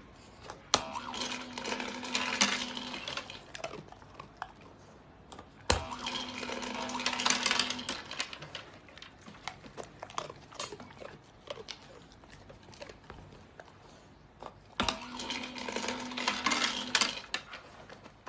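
Motorised pet treat dispenser set off three times by a dog pressing its paw button: each time a click, then a small motor hums for about two seconds while kibble rattles out into the tray.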